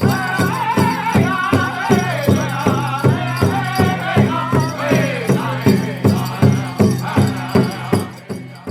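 Background music with a steady beat of about three strokes a second and a shaker-like rattle, under a wavering melody that drops out near the end.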